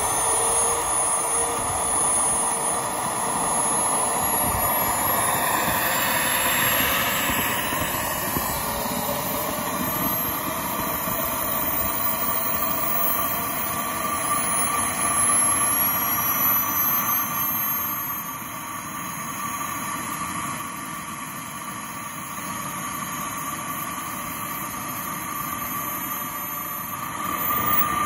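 Kingtech K-70G4 model jet turbine running on the ground in an RC F-15, a steady high whine whose tones climb slowly in pitch as it spools. It eases off about two-thirds of the way through and rises again near the end.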